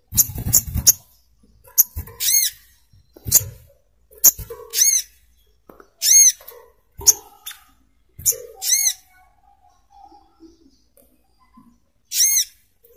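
Brown-throated sunbird (sogok ontong, the coconut sunbird) calling: a series of short, sharp notes at uneven spacing, several of them high, ringing, slightly arched chips, with a pause of a few seconds before a last call near the end.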